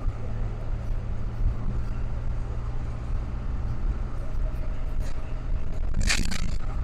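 A bus's engine and road noise heard from inside the cab while driving: a steady low hum under a haze of tyre noise, with a short burst of hiss about six seconds in.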